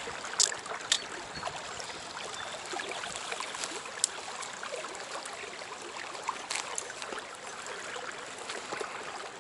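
Stream water running steadily over a riffle, with a few short sharp clicks scattered through it.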